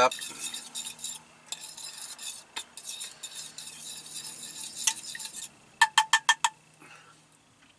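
Metal spoon stirring melted butter and hot sauce in a small metal pot, scraping and clinking against the sides. About six seconds in come six quick ringing taps of metal on metal, like the spoon being knocked on the pot's rim.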